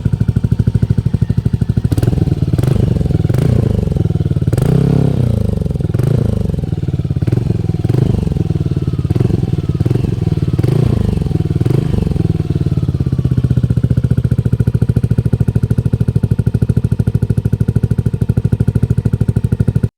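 Yamaha Aerox 155 scooter's single-cylinder engine running through an aftermarket Akrapovic slip-on exhaust: it idles, is blipped on the throttle about a dozen times in quick succession, then settles back to a steady idle.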